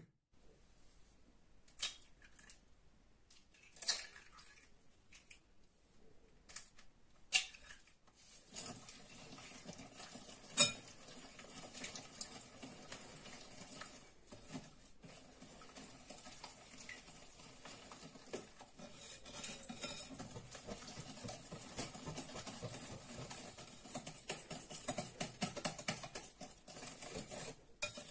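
Three eggs cracked one by one against a glass bowl, each a single sharp crack. About eight seconds in, a wire whisk starts beating them into creamed butter and sugar, a quick, continuous scraping and clinking of the wires against the cut-glass bowl.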